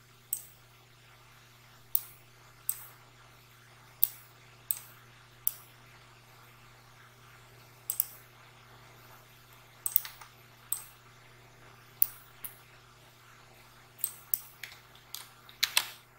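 Sharp, irregular clicks of a computer mouse, some in quick pairs and bunched near the end, over a faint steady low hum.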